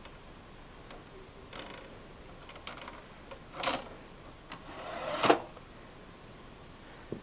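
Scattered plastic clicks from handling a computer DVD-ROM drive with a newly fitted faceplate, then a short scrape and a sliding sound that ends in a sharp clack about five seconds in.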